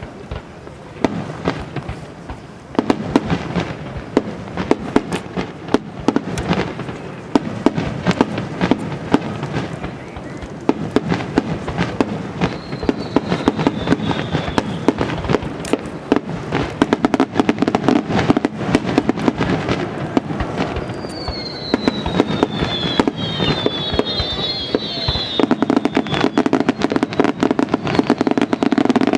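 A star mine fireworks barrage: a dense, rapid volley of aerial shell bursts and crackles that grows louder a few seconds in, with several falling whistles in the middle and later part.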